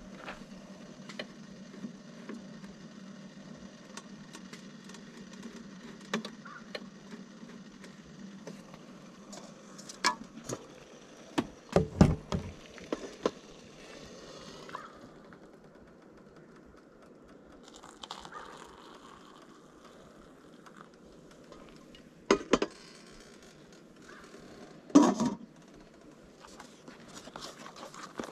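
A stainless-steel pot of water heating on an electric hot plate gives a steady low hum with a faint high hiss, which stops about halfway through when the pot is lifted off. Metal clanks of the pot and lid being handled come just before that, and two sharp knocks come later. Light clicking of a plastic spoon stirring a paper cup is heard near the end.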